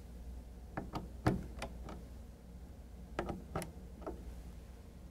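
A scattered series of light clicks and taps, about eight in all, as hands and a screwdriver handle the plastic valve body and fittings of an Autotrol 255 water softener control valve while its connections are checked for tightness.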